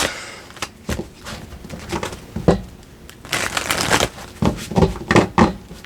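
Tarot cards being handled and shuffled: scattered brushing and tapping of cards, with a longer rustle about three and a half seconds in and a few sharper taps near the end.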